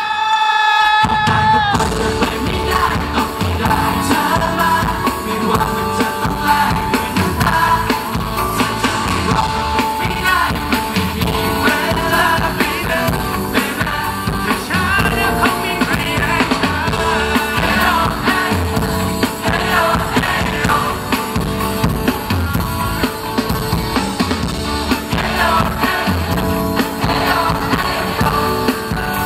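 Live pop-rock song from a boy band: male vocals sung into handheld microphones over a live band with drum kit and a steady beat. The bass and drums drop out for about a second at the start, then the full band comes back in.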